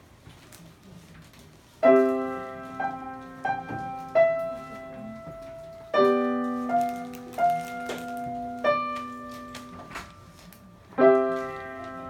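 Grand piano being played in short phrases: after a quiet opening pause, loud chords are struck about two seconds in, again around six seconds and near the end, each followed by a few ringing notes that die away.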